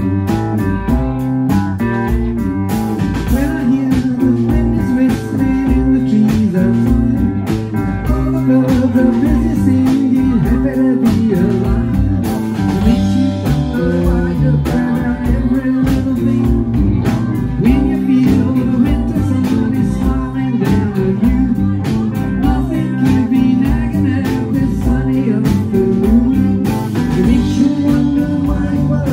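A live rock band playing electric guitars, bass guitar and a drum kit, with a sung vocal over the top.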